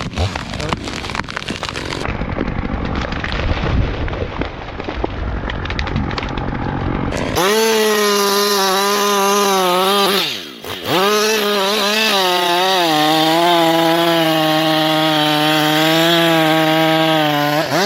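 A rough, crackling stretch of sawing noise, then an abrupt change about seven seconds in to a chainsaw running at full throttle with a steady high engine note. About three seconds later the note dips briefly and revs back up.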